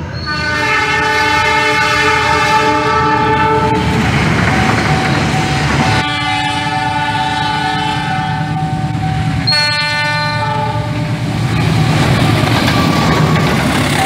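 CC 206 (GE C20EMP) diesel-electric locomotive horns sounding three long blasts, each a chord of several tones held together. Near the end the horn gives way to the rumble and wheel noise of the locomotive passing close.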